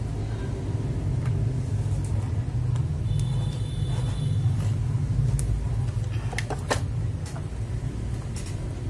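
A steady low rumble, with a few sharp small clicks in the second half, about five, as a mechanical keyboard switch is handled and opened for lubing.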